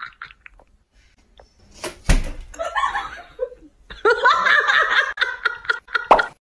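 A person laughing and talking, with a single sharp smack about two seconds in.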